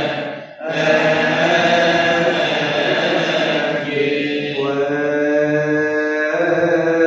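Coptic Orthodox liturgical chant: a man's voice singing long, drawn-out notes, with a short break about half a second in and a shift to a new held note around four seconds in.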